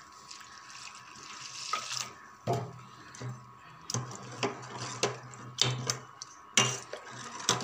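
Water poured into a bowl of dry semolina (rava) dosa mix, then the batter stirred, with irregular scraping strokes from about two and a half seconds in.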